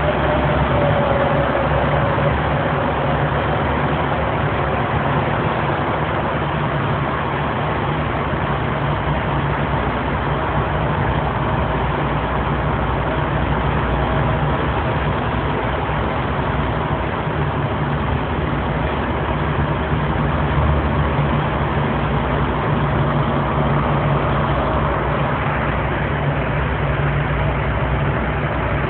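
Road noise heard inside a moving vehicle in a road tunnel: a steady low engine hum under continuous tyre rumble.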